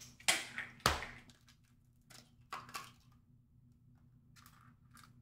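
Two sharp cracks about half a second apart near the start, then a few softer knocks and rustles: raw eggs and their shells being handled at a stainless steel mixing bowl.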